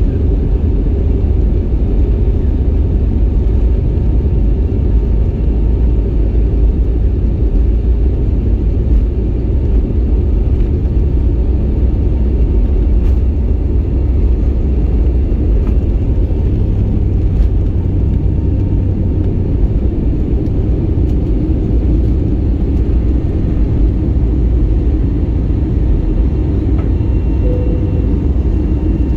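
Cabin of an Airbus A321neo during takeoff: a loud, steady deep rumble of the engines at takeoff thrust and the wheels on the runway, carrying on through liftoff into the climb. A faint high steady tone comes in near the end.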